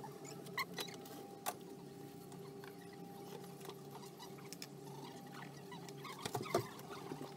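Light clicks and taps of small tools and phone parts being handled on a rubber bench mat during a phone screen repair, over a steady electrical hum, with a sharper clatter near the end.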